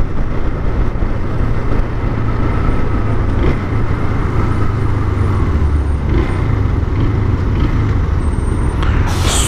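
Motorcycle riding through dense city traffic beside trucks: a steady mix of engine, tyre and traffic noise. There is a brief, louder rush of noise near the end.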